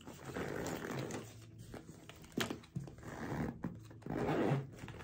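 A faux-leather crossbody bag being opened and handled: several short rasping, rustling strokes, with a sharp click about two and a half seconds in.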